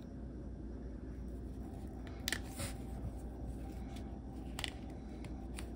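Faint clicks and rubbing of small valve parts and rubber seals being handled in the fingers: a Bendix MV-3 dash valve plunger having a greased seal slid onto it. A few short clicks over a steady low hum.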